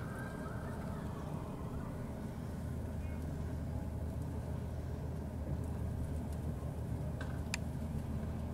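Steady low rumble of city street traffic, with a couple of short sharp clicks near the end.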